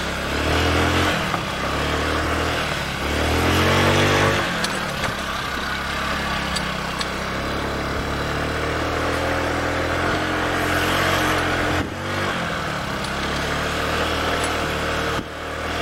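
Honda Ruckus scooter's 49cc four-stroke single-cylinder engine being ridden, revving up twice with a rising pitch in the first few seconds, then running fairly steadily with brief dips. It pulls without stumbling; the owner suspects a fuel-supply fault, such as a plugged fuel filter or main jet.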